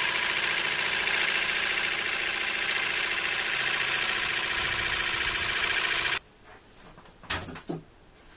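DeWalt jigsaw cutting through a 4 mm acrylic (plexiglass) sheet, a loud steady saw noise. It cuts off suddenly about six seconds in, and a few faint knocks follow.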